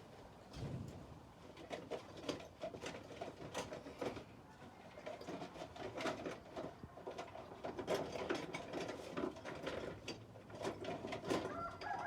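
Irregular clattering and knocking of metal tool parts being handled and set down, with birds calling in the background from about halfway through.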